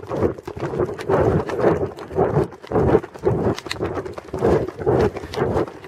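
A horse's hoofbeats on a dirt trail, heard from the saddle: a steady rhythm of dull thuds and rustling as it moves along briskly.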